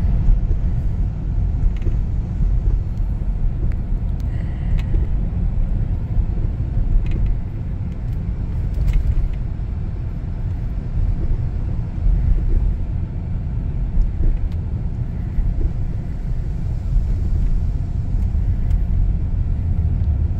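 Steady low rumble of a vehicle driving on the road, heard from inside the cabin, with a few faint ticks.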